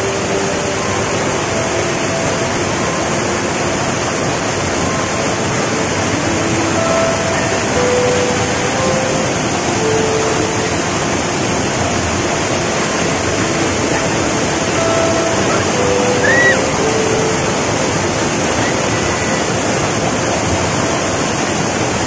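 Waterfall pouring, a loud, steady, unbroken rush of falling water.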